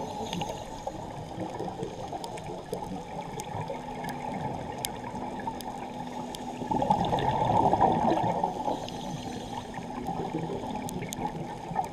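Underwater sound of a scuba diver's exhaled bubbles gurgling out of the regulator, loudest in one long exhale about seven seconds in, with scattered sharp clicks and a faint steady hum in between.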